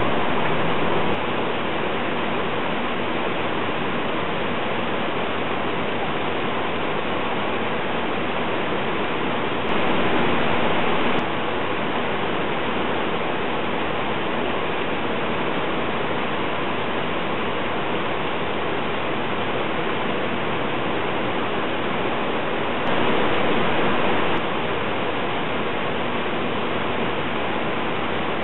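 Steady rushing of river water below a hydroelectric dam. It grows slightly louder for a second or so twice.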